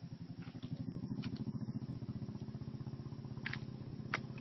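A small engine running steadily, growing louder over the first second, with a few sharp clicks near the end.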